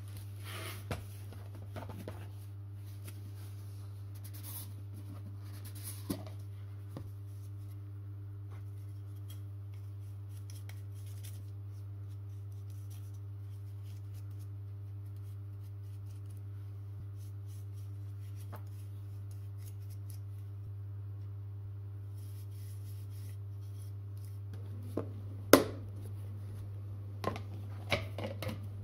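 Gloved hands handling plastic containers: soft rustles and taps, then a cluster of sharp plastic clicks near the end, the loudest as the lid of a clear plastic box is pressed shut. A steady low hum runs underneath.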